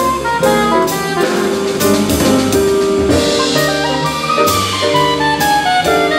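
Small jazz combo playing a hard-bop tune: double bass walking a note to each beat and a drum kit keeping time with cymbal strokes under piano and saxophone/trumpet lines.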